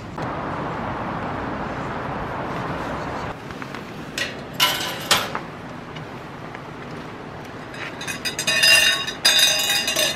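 A steady rushing noise for about three seconds. Then bright metallic clinking, a couple of quick clinks about four seconds in, and a longer run of ringing jingles near the end.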